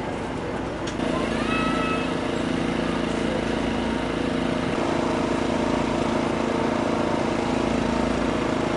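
An engine running steadily at one constant speed, an even mechanical hum.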